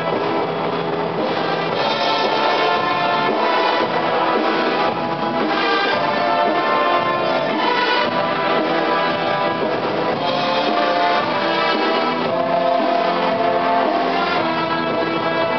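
Loud music led by brass instruments, playing without a break.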